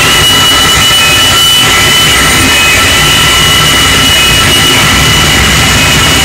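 Loud, harsh electronic noise from a DIY oscillator fed through a Line 6 DL4 delay and other effects pedals: a dense wash with several steady high whistling tones on top, one of which steps up in pitch at the very start.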